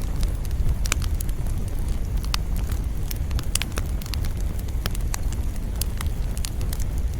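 Campfire burning, with a steady low rumble of flames and frequent sharp, irregular crackles and pops from the wood.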